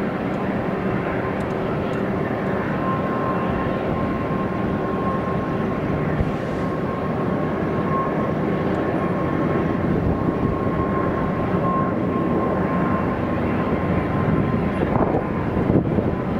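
Airbus A320neo's twin turbofan engines at takeoff thrust during the takeoff roll: a steady jet rush with a held whining tone, growing a little louder toward the end as the aircraft rotates.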